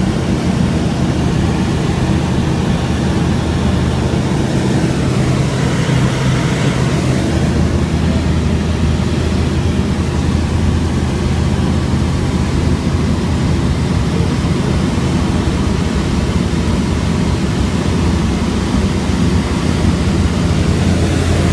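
Small propeller aircraft engines droning steadily. Their buzz is likened to lawnmowers. The sound swells and fades about five to eight seconds in as one passes closer.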